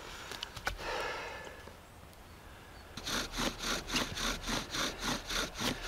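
Bow drill being worked: a spruce spindle grinding in its hearth socket as the bow is sawn back and forth, giving an even rasping squeak about four to five strokes a second. The strokes start about three seconds in, after a little quiet handling.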